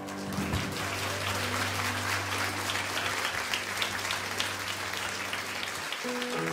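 Audience applauding at the end of a song, a dense patter of many hands, with a low held note ringing underneath. Music starts again near the end.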